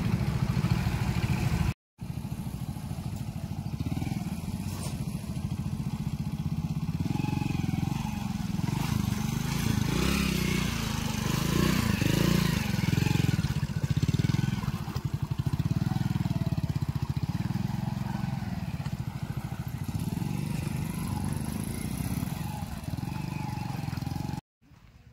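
Hero Honda single-cylinder four-stroke motorcycle engine running at low revs as the bike is ridden through shallow river water. The engine speed swells and eases every second or two, loudest about halfway through.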